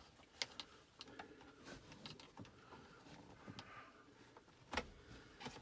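Faint, scattered light clicks and rustling of a Ford Flex second-row seat's fabric cover and plastic trim being worked loose by hand, with one sharper knock near the end.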